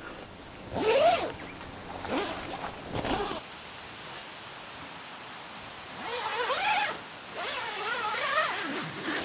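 A tent door zip pulled open in three short rasping strokes, the first the loudest, as the pup tent's rear panel is unzipped to its mesh. Later come two softer wavering calls.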